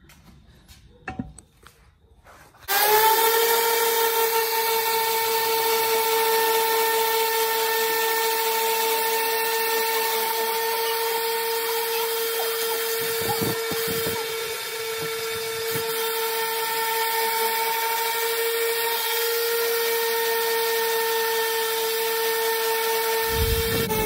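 Corded random orbital sander switched on about three seconds in, rising briefly in pitch as it spins up, then running steadily with a high whine while sanding a metal pit bike part.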